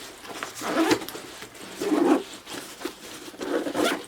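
Fabric camera bag being handled, rustling and scraping in three short bursts.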